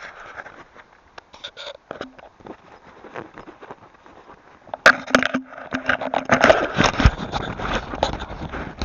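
Close rustling and crackling noise with sharp clicks, quiet at first and much louder from about five seconds in. A low rumble of wind on the microphone comes in near the end.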